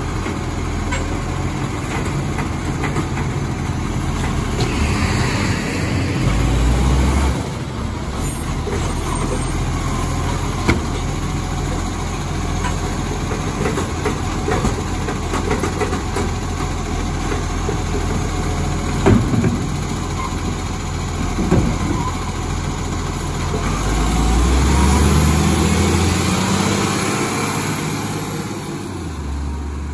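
Iveco Acco side-loader garbage truck idling at the kerb while its hydraulic arm lifts wheelie bins and tips them into the body. The engine revs up briefly, and there are a few sharp knocks of bins against the arm and body. Near the end the truck pulls away, its engine rising as it drives past.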